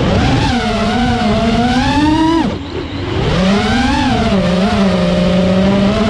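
FPV freestyle quadcopter's XING brushless motors and propellers whining, the pitch rising and falling with the throttle. About two and a half seconds in the pitch drops sharply for a moment as the throttle is cut, then climbs again.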